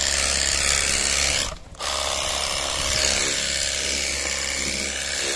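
Battery-powered portable pressure washer running, its pump motor humming under the hiss of a wide flat-spray jet of water rinsing a scooter's bodywork. The spray cuts out briefly about one and a half seconds in, then starts again.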